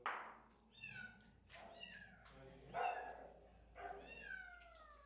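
Young kittens meowing repeatedly, about five high calls that each slide down in pitch, the last one long and drawn out. A short sudden clatter sounds right at the start.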